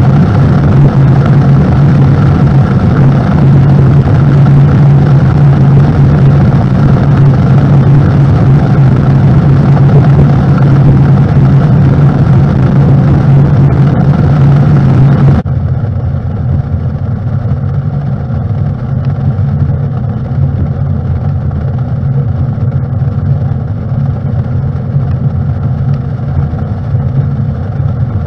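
Mercury 150 Pro XS outboard running steadily as the aluminum boat cruises, a steady low hum under wind and water rush. About halfway through the sound drops suddenly and turns duller while the engine hum carries on.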